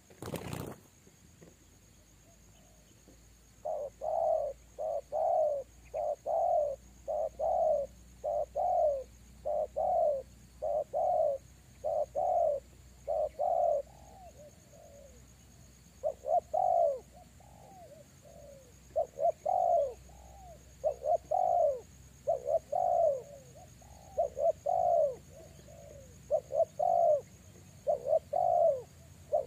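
Spotted dove cooing over and over, a long run of short falling coos at about two a second in phrases with brief gaps, starting a few seconds in. It opens with a short burst of wing flapping.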